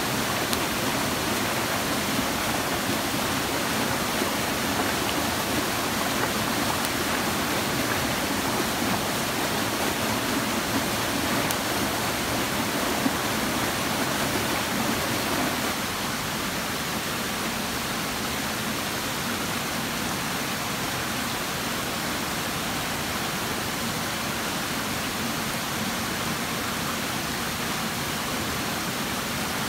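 Forest stream rushing steadily over rocks. The deeper part of the rush thins out a little about halfway through.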